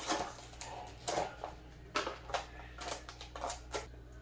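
Packaging of a Geissele trigger being opened and handled: a string of sharp, irregular clicks, taps and rustles, over a faint low steady hum.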